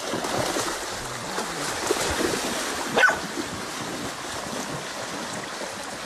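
Creek water rushing steadily while a dog whines eagerly for a thrown stick, with one sharp high yelp about three seconds in.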